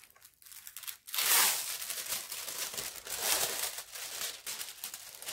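Clear plastic protective film crinkling and crackling as it is peeled off and handled over an adhesive diamond painting canvas, with a louder rustle about a second in and another around three seconds in.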